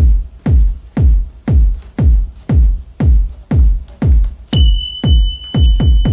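Background electronic dance music with a deep kick drum about twice a second; a steady high synth tone comes in about four and a half seconds in.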